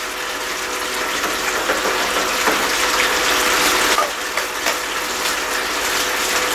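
Water running and splashing steadily through a Gold Cube gold concentrator, fed from a hose and spread over its top tray, with a few light clicks as concentrate is scooped in.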